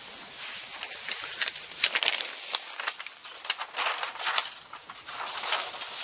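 Rustling and crinkling of men's kimono underrobes (nagajuban) being handled, with irregular soft clicks. It is loudest about two seconds in and again near the end.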